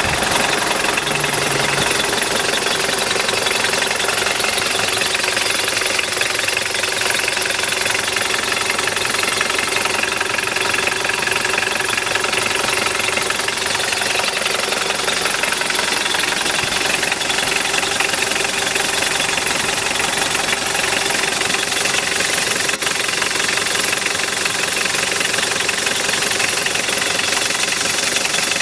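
A 1989 Mitsubishi Pajero XL-Wide's four-cylinder turbo-diesel idling steadily, heard from close by in the open engine bay.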